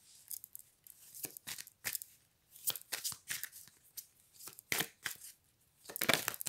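Dixit cards being shuffled by hand: a run of irregular papery swishes and flicks, loudest and densest near the end.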